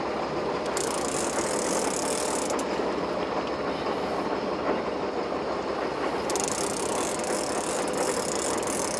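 Steady rumble of a fishing boat's engine and water along the hull. Two spells of sharper hiss come in about a second in and again from about six seconds.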